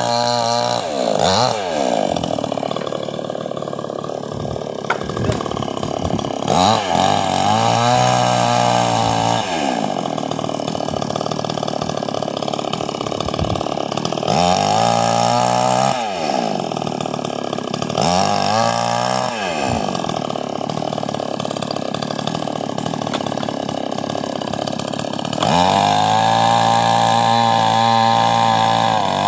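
Chainsaw engine revved up about six times, its pitch climbing and then falling back between revs; the last rev is held high for several seconds near the end.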